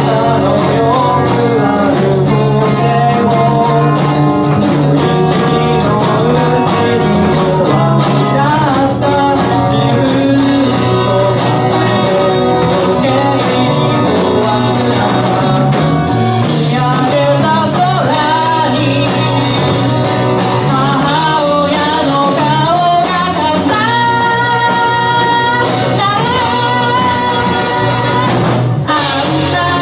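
Live rock band playing loud and steady, with electric guitars and a drum kit.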